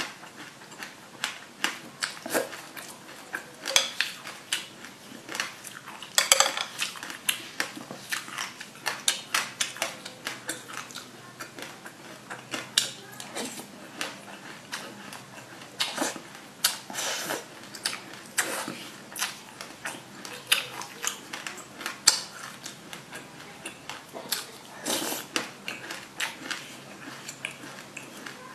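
Close-miked eating of sesame seeds with passion fruit pulp: a metal spoon scraping and clinking in a glass bowl, and wet, crackly chewing of the seeds, with many sharp clicks throughout.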